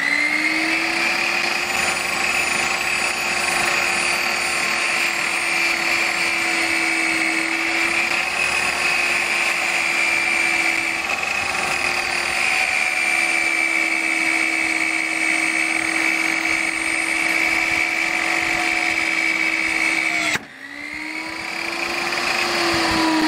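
A Chicago Electric 15-amp, 10-inch table saw runs at a steady pitch with its blade spinning while a pine board is pushed through. About 20 seconds in the sound drops away suddenly, and the motor then winds back up to speed.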